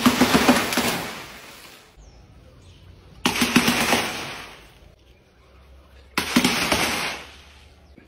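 Clusters of paint-filled balloons hitting a board and bursting, three times. Each time a quick rattle of pops and splats starts suddenly and fades over about a second and a half.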